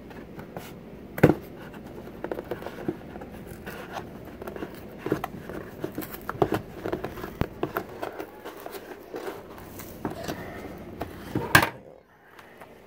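Cardboard mailing box being pried and torn open by hand: a run of scrapes, rips and small clicks. There are two sharp knocks, about a second in and near the end.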